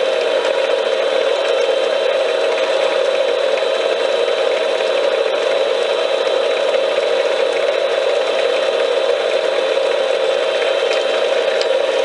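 Small metal lathe running at a steady speed, a constant mechanical whine of motor and gears.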